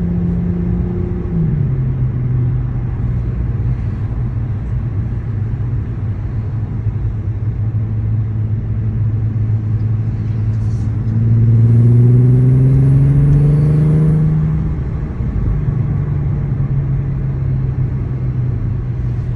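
Mk5 Golf R32's 3.2-litre VR6 engine running under way. The engine note drops suddenly about a second and a half in, holds steady, climbs with a louder, rising tone from about eleven seconds, then drops back again near fifteen seconds, as at gear changes.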